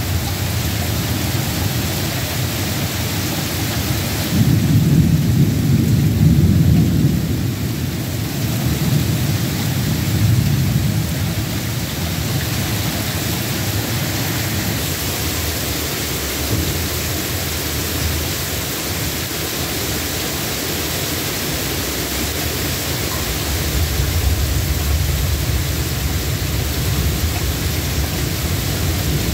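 Heavy rain falling in a steady hiss, with thunder rumbling low underneath. The thunder is loudest about four to eight seconds in and swells again near the end.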